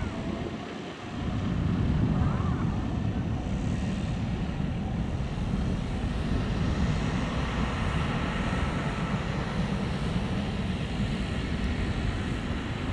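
Pilatus PC-24 business jet's twin Williams FJ44 turbofans heard from a distance as the jet climbs away, a steady low rumble that swells about a second and a half in.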